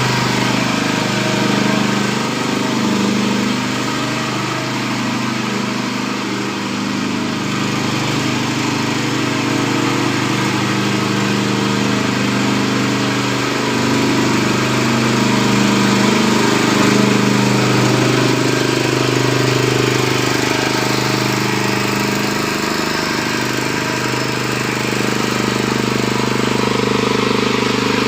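Mini rotavator's small engine running steadily at work, with a slight wavering in its pitch.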